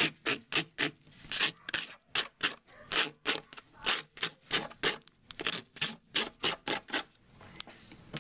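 Small plastic scraper scraping algal turf off an algae scrubber screen in quick, repeated strokes, about three a second, stopping about seven seconds in.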